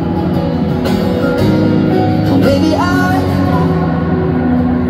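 Live acoustic song played over an arena PA and recorded from the stands: steady instrumental accompaniment, with a singing voice sliding up into a held note a little under three seconds in.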